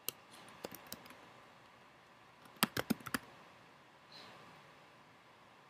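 Keystrokes on a computer keyboard typing a short phrase. A few scattered key clicks come in the first second, then a quick run of about six louder clicks near the middle.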